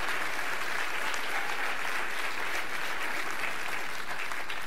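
A large audience applauding steadily: many people clapping at once in a dense, continuous patter.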